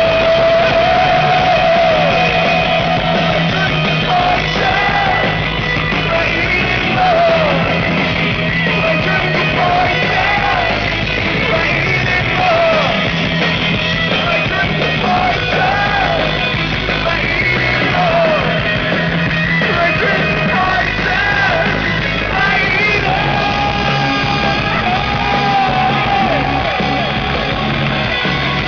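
Loud live rock music: a full band playing with a male voice singing and yelling over it.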